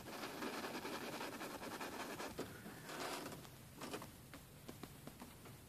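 Faint scratchy brushing of a paintbrush working paint onto canvas in short round strokes, fading out after about three seconds, with a few faint taps.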